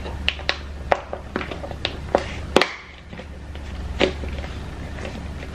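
Lid of a packed lunch container being pressed shut by hand: a run of sharp clicks and knocks, the loudest about two and a half seconds in, over a steady low hum.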